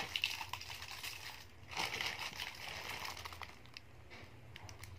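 Thin plastic packaging crinkling as it is handled: a clear plastic bag around a small item, with a plastic mailer bag. It is loudest in the first two seconds and grows fainter toward the end.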